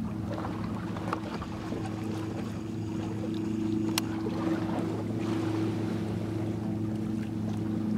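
Boat engine running at a steady low hum, over wind and water noise. A single sharp click about four seconds in.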